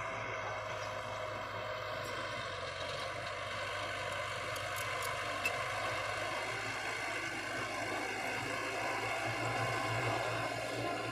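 Heavy construction vehicle's engine running steadily, a dump truck or bulldozer working soil.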